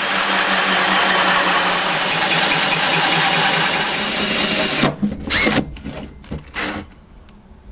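Cordless Ryobi drill spinning a large hole saw, cutting steadily through an epoxied mahogany plywood wall panel. It stops almost five seconds in, and a few short bursts of drilling follow.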